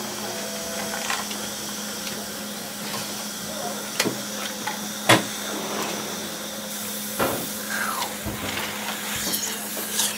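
Busy dentist office ambience: a steady hum and high-pitched whine of dental equipment under scattered clicks and clatter of instruments, the loudest click about five seconds in. A hiss like suction sets in about two-thirds of the way through.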